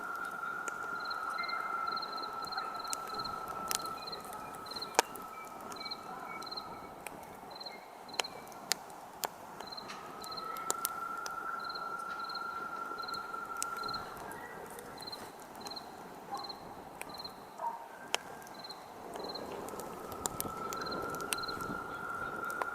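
Campfire crackling, with scattered sharp pops from the burning wood; the loudest pop comes about five seconds in. Crickets chirp steadily, about two to three chirps a second. A steady high drone comes and goes in long stretches several seconds long.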